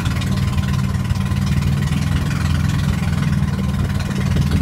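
A wooden passenger boat's engine running steadily with an even low hum, over a constant rush of wind and water.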